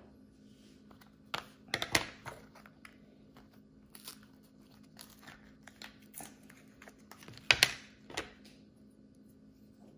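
Plastic-and-paper blister card of Panasonic CR2032 coin cells being bent and torn open by hand: scattered crinkling and clicking, with a louder crackle about three-quarters of the way through as the backing comes away.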